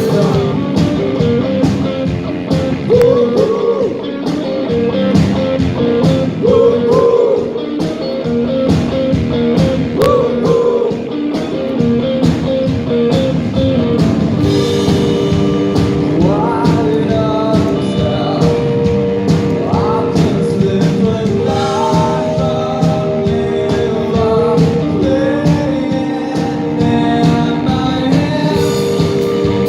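Live rock band performing a song: a singer's voice over the band with a steady drum beat.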